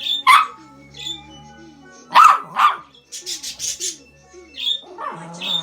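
Dog barking: one bark near the start and two more about two seconds in, while pet budgies chirp with short high calls throughout.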